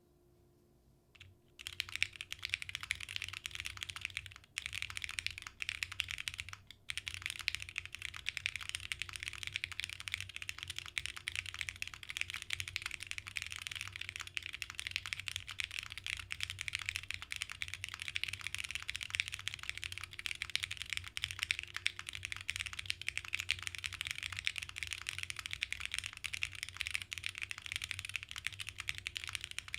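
Fast typing on a custom 60% mechanical keyboard with SP Star Meteor White linear switches on a half aluminium plate, no dampening, and ePBT PBT keycaps: a dense, steady run of keystroke clicks. It starts about a second and a half in, with two brief pauses early on.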